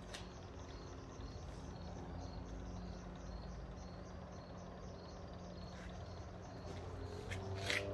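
Crickets chirping at night in a steady rhythm, about three chirps a second, over a faint low hum. Near the end a bird starts calling.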